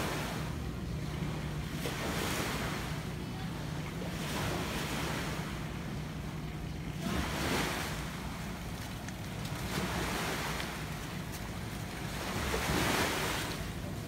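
Sea waves washing against the seawall below in swells every two to three seconds, over a steady low wind rumble on the microphone.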